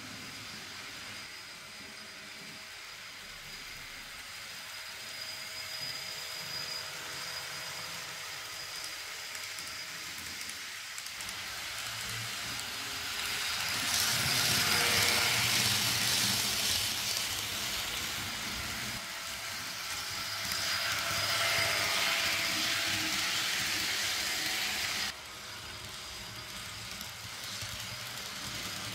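Fleischmann N-scale ICE-T model train running on the layout track. Its motor and wheel noise swells as it comes close, is loudest about halfway through and again a little later, and drops off abruptly about four seconds before the end.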